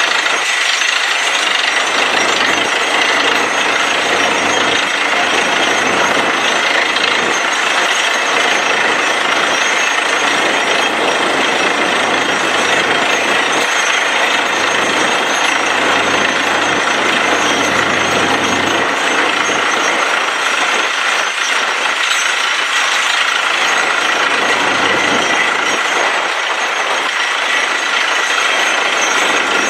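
Truck-mounted borewell drilling rig running under load while drilling, a loud, unbroken din of engine, air compressor and down-the-hole hammer, with air blowing wet rock cuttings out of the hole around the drill pipe.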